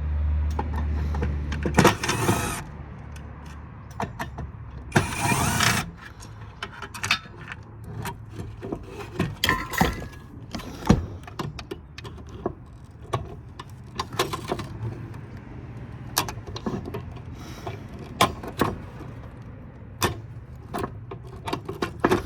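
A handheld power driver runs in short bursts of about a second, twice in the first six seconds, removing screws from a metal power-supply chassis. After that come scattered light metallic clicks and clinks of screws, parts and tools being handled.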